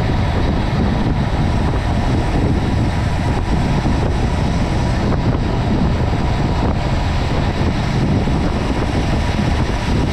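Wind buffeting the microphone of a camera riding along in a road-bike race, a steady low rumble.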